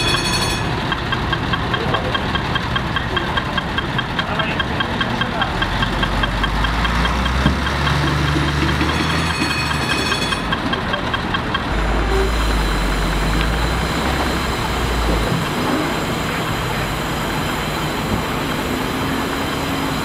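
Emergency vehicle engines idling at the scene in a low steady rumble, with a rapid repeated electronic beeping through the first half that then stops.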